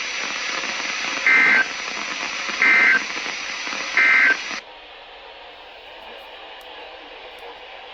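Three short EAS/SAME end-of-message data bursts from a NOAA Weather Radio broadcast, each about a third of a second and about a second and a half apart, over steady radio hiss. They mark the close of the Required Weekly Test. Shortly after the third burst the hiss drops to a quieter, duller level.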